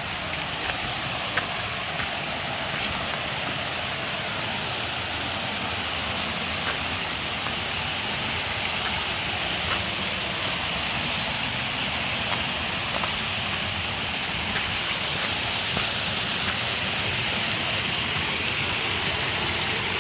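Stream water rushing steadily over rocks, an even hiss-like rush with a few faint ticks scattered through it.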